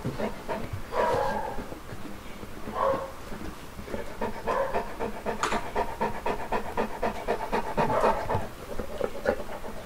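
Saint Bernard dog panting rapidly and rhythmically while eating frosting, with a few louder breaths along the way.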